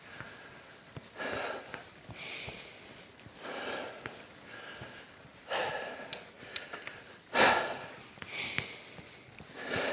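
A cyclist's heavy breathing while pedalling up a steep climb: puffing and panting, about one loud breath every second or so.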